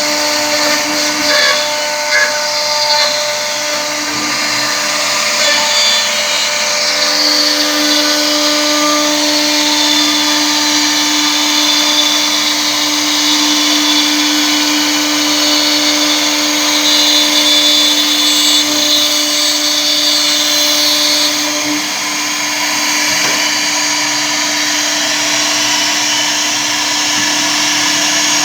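CNC router's air-cooled 2.0 kW spindle running steadily while the bit cuts wood: a steady hum-like tone over a broad hiss, easing slightly for a moment about three quarters of the way through.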